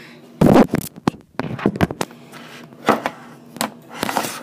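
Handling noise from a phone or camera being grabbed and fumbled: a string of knocks, thumps and rubbing right on the microphone, the loudest about half a second in.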